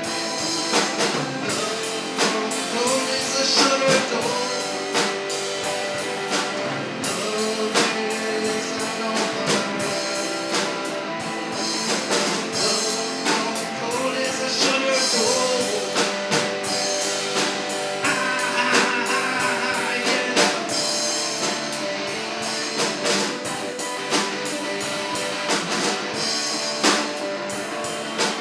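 Live rock band playing: electric guitars and a drum kit, with steady drum hits under wavering guitar lines.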